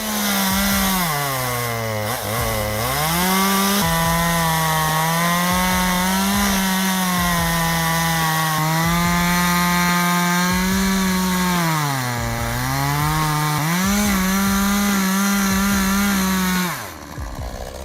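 Ryobi RCS5145B 45 cc gasoline chainsaw running at high revs, cutting wood. Its engine note dips twice and recovers, then the sound drops away sharply near the end.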